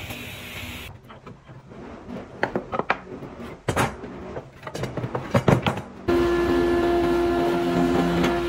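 Wooden boards and metal bar clamps knocking and clattering on a workbench as a panel is laid out. Then a wood thickness planer runs steadily without cutting, with a level hum and a held tone.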